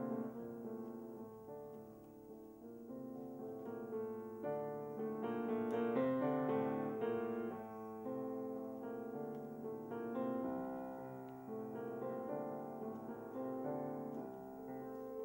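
Grand piano played: a dense stream of overlapping chords in the middle register. It grows louder to a peak about six seconds in, then eases off.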